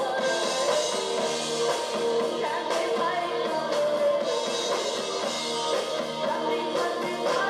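Live rock band playing: drum kit beats under sustained keyboard chords and other instruments.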